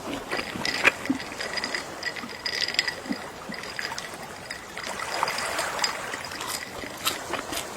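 Gentle sea waves lapping and trickling over the shore, with many small scattered clicks in the water. A faint steady high tone runs through the first three seconds, and the wash swells again a little past halfway.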